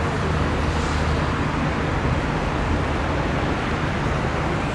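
Bombardier Global Express business jet's Rolls-Royce BR710 turbofans heard from a distance as it rolls on the runway: a steady, noisy rumble with a constant low hum underneath.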